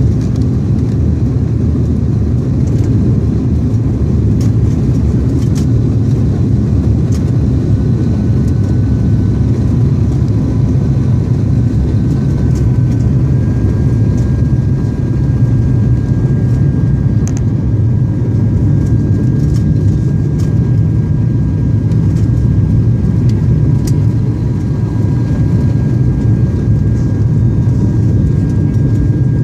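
Steady cabin drone of an ATR 72-200 turboprop airliner in flight, its propellers and engines giving a deep constant hum. A faint high steady tone joins about seven seconds in.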